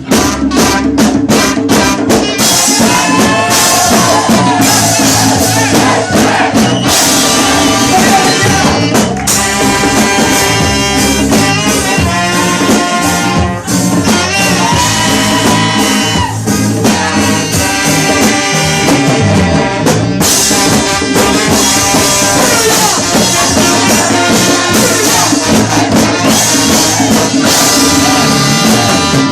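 Loud ska-style music with a brass horn section and singing, played through a sound system.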